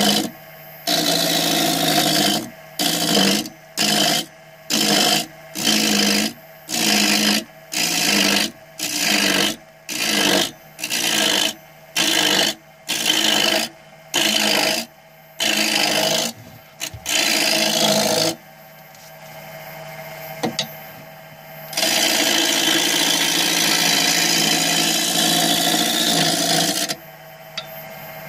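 Turning tool cutting a spinning wood blank on a lathe, shavings tearing off in quick repeated passes, about three every two seconds. Between cuts the lathe runs with a low steady hum. After a pause comes one long continuous cut of several seconds.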